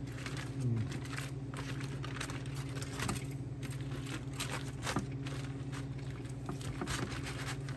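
Aluminium foil crinkling and rustling in short, scattered crackles as gloved hands peel open a foil wrap around a rack of cooked ribs, over a steady low hum.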